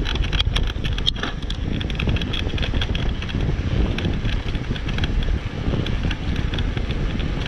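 Steady wind buffeting the microphone of a camera on a moving bicycle, with scattered light clicks and rattles from the bike, one sharper click about a second in.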